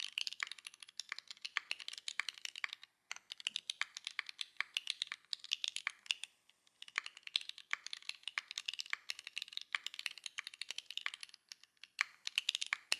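Typing on a Mode65 mechanical keyboard with an FR4 plate, aluminium bottom, SWK Yang switches and GMK Camping keycaps: quick runs of keystrokes, with short pauses about three, six and a half and eleven and a half seconds in.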